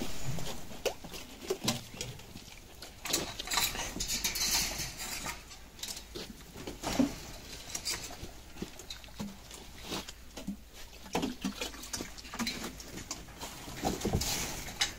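Vervet monkeys scrambling about in play: an irregular patter of light knocks, taps and rustles.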